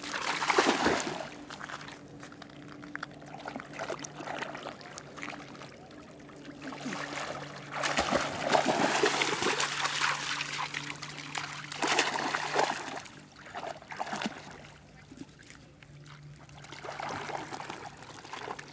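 A small dog wading and splashing through shallow water, in bursts of splashing and trickling: one at the start, a longer one past the middle, a short one soon after and another near the end.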